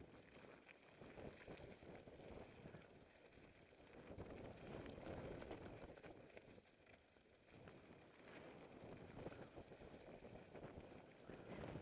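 Mountain bike rolling fast down a gravel trail: faint crunch and rattle of tyres on loose gravel and the bike clattering over the bumps, with wind rushing on the microphone. It dips briefly a little past halfway.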